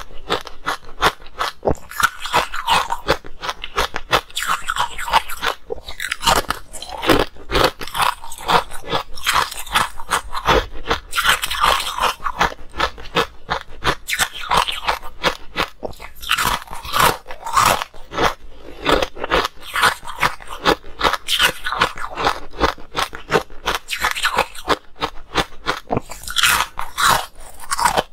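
Close-miked crunching and chewing of coloured ice sticks: a fast, unbroken run of sharp cracks as pieces are bitten off and ground between the teeth.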